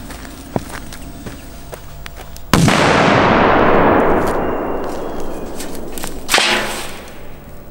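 A large firecracker goes off under a metal pot about two and a half seconds in: one sudden loud bang followed by a long rushing decay that fades over about three seconds. A second, shorter crack comes near the end.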